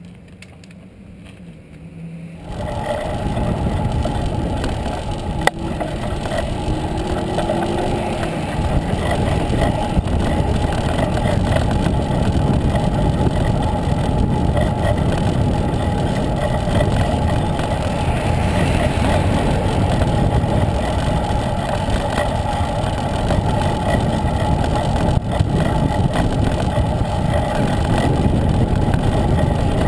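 Steady rumble of wind buffeting the microphone and road noise from a moving bicycle, starting suddenly a couple of seconds in and running loud and even after that.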